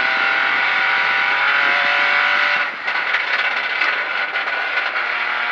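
Peugeot 208 Rally4's turbocharged three-cylinder engine heard from inside the cockpit, held at steady high revs flat out in fifth gear. A little under three seconds in, the note breaks off as the driver lifts and brakes, then carries on lower after a downshift to fourth.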